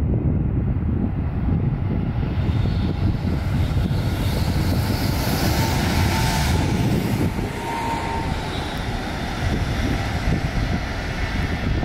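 Double-deck electric multiple unit passing beneath: its hiss builds, peaks about halfway through with two brief high whines, then fades as the train moves away. A low wind rumble on the microphone throughout.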